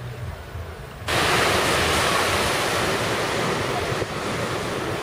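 Ocean surf breaking on a sandy beach, a steady rush with wind on the microphone, starting abruptly about a second in after a low wind rumble.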